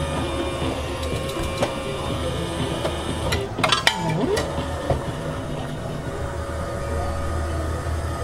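Candy vending machine running: a steady mechanical hum with held tones, and a short cluster of clicks a little under halfway through.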